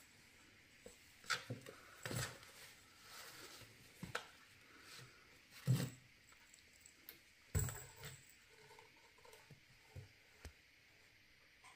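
A cat moving about and pouncing inside a cardboard box: scattered soft thumps and scratchy rustles against the cardboard, the two loudest thumps a little before halfway and about two-thirds of the way through.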